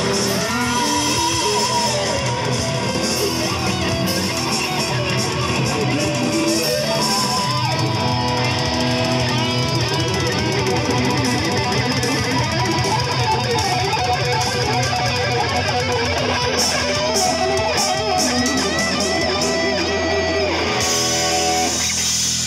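Live rock band playing, with electric guitars, bass guitar and a drum kit.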